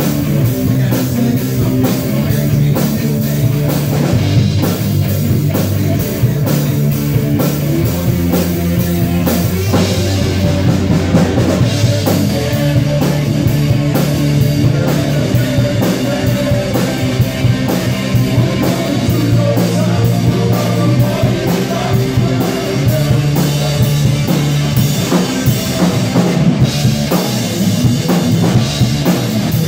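Live rock band playing: electric guitar and electric bass over a drum kit keeping a steady beat, loud and continuous.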